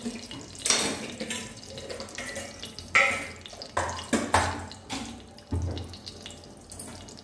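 Hot oil in a kadhai sizzling quietly, with about six sharp spits and pops at irregular moments; the loudest comes about three seconds in.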